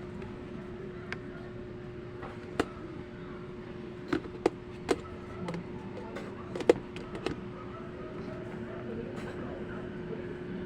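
A steady, even hum with a handful of sharp clicks and knocks scattered through it, the loudest about two-thirds of the way in.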